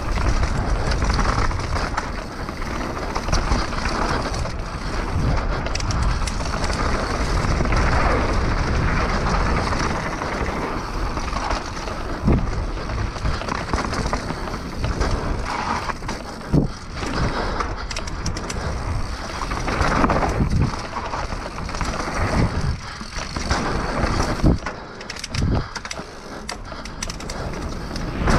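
Mountain bike riding fast down a dirt trail, heard from a camera on the bike or rider: tyres rolling over dirt and dry leaves, the bike rattling, with sharp knocks over bumps and wind rumbling on the microphone.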